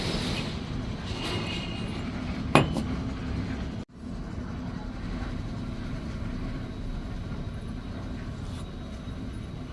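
Steady low machine hum with one sharp metallic clink about two and a half seconds in; the sound cuts out for an instant near four seconds, then the hum carries on.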